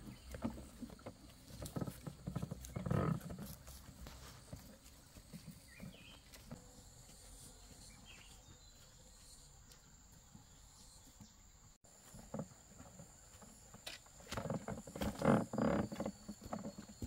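Footsteps on a dirt forest trail with rustling vegetation, in uneven clusters: a few in the first seconds, then a quieter stretch, then more steps near the end. A faint steady high tone runs through the second half.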